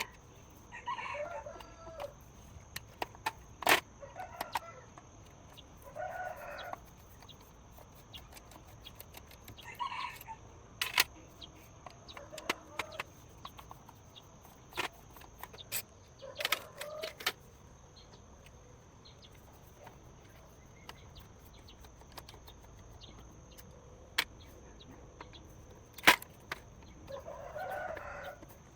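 A bird calling in short, separate calls, about seven in all, among scattered sharp clicks and knocks; the loudest knock comes near the end.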